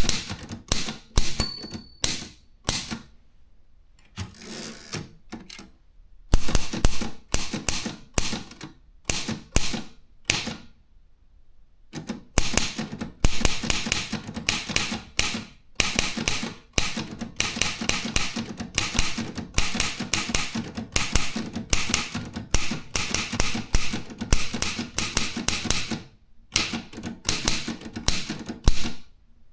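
Consul 232 typewriter being typed on: type bars striking the paper in quick runs of keystrokes, with two short pauses, one a few seconds in and one about a third of the way through.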